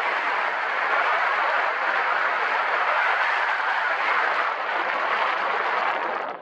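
Steady, loud rushing wind noise on the microphone, an even roar with no rhythm.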